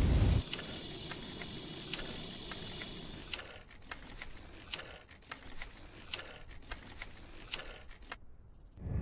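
A flamethrower burst cuts off just after the start, leaving a fading hiss, then scattered small clicks and crackles for several seconds; a new loud burst begins at the very end.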